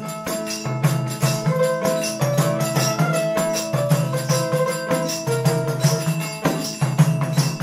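Instrumental break in a Bengali fakiri devotional song: a held low drone and a melodic instrument line over jingling hand percussion keeping a steady beat.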